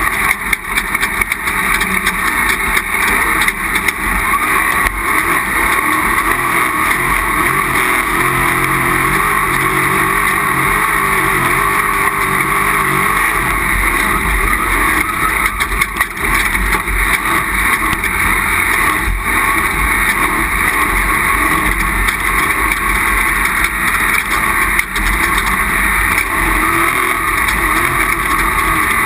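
Off-road race vehicle's engine running hard under load, heard from onboard as a constant loud wash of engine and driving noise with the engine pitch wavering a little.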